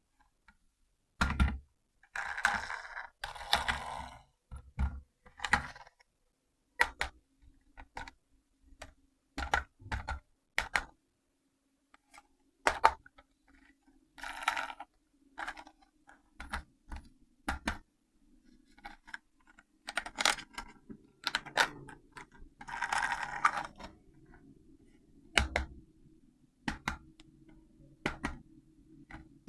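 Handling of a plastic RC toy car and its packaging: irregular sharp clicks and knocks of plastic, with a few short rustles of packaging.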